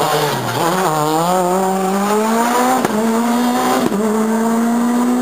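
Rally car engine slowing for a hairpin, its pitch dropping briefly, then pulling away under hard acceleration with the pitch rising steadily.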